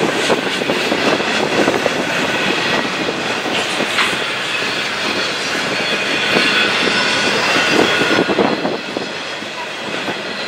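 Double-stack intermodal freight train rolling past at speed, the wheels of its container well cars rumbling and clattering over the rails, with a few sharp clanks along the way.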